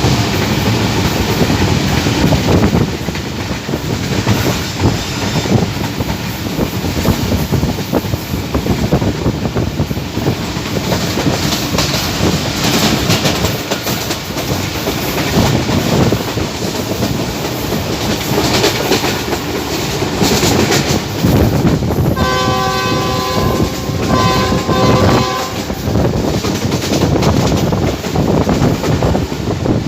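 Locomotive-hauled passenger train running at speed, the wheels clattering over the rails with a continuous rumble. About 22 seconds in, the GEU 20 diesel locomotive's horn sounds twice, a long blast and then a shorter one.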